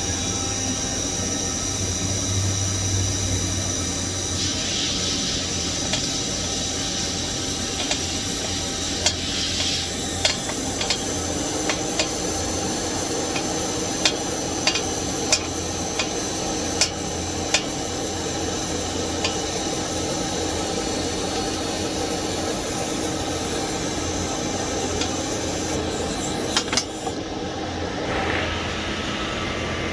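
TIG welding arc on a stainless steel coupling, a steady hiss and buzz over a low hum, with a run of sharp clicks in the middle as the ceramic cup is walked around the fitting. The high hiss cuts off near the end.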